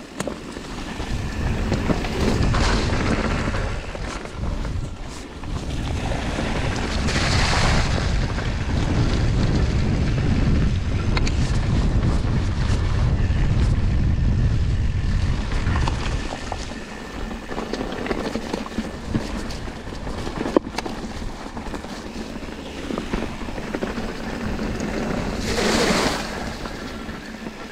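Wind buffeting the action camera's microphone on a moving mountain bike, over a low, uneven rumble from the tyres on rough trail. A few brief louder hissing surges come about two, seven and twenty-six seconds in.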